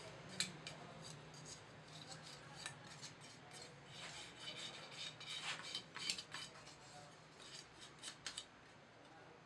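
Metal tongs and a steel blade scraping and clinking against the steel casting flask and a freshly cast aluminium piece as it is dug out of the casting sand. A sharp clink about half a second in, a busier stretch of scraping and clicking in the middle, and a few light clinks near the end.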